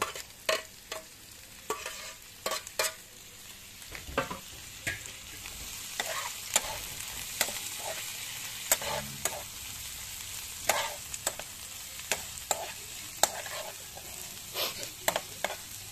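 River clams (koteng) frying in oil with chopped chili, onion and garlic in a frying pan: a steady sizzle that grows a little louder about five seconds in, under frequent sharp clicks and scrapes of the spoon and spatula stirring against the pan.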